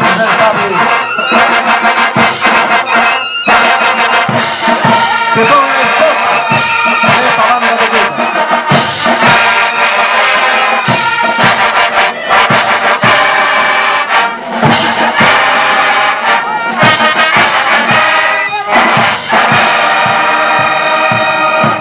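School marching band of trumpets, trombones and baritone horns with drums playing a march, loud and steady with a regular drum beat, then stopping abruptly at the end.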